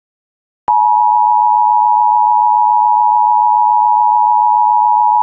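Emergency Alert System two-tone attention signal: a steady dual-tone alarm that starts abruptly about a second in and holds without change.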